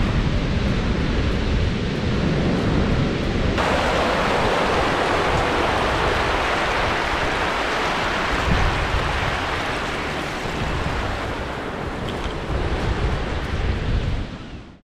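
Calving wave from a tidewater glacier surging up a gravel beach strewn with ice chunks, water rushing over the stones and ice, with wind on the microphone. The sound turns suddenly brighter about three and a half seconds in and cuts off just before the end.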